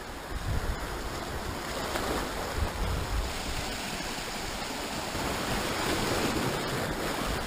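Sea surf washing over shoreline rocks, with a wave surging in louder near the end, and gusts of wind buffeting the microphone.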